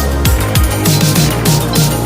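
Background electronic music with a heavy bass line of short downward-sliding bass notes and fast hi-hat ticks over a steady beat.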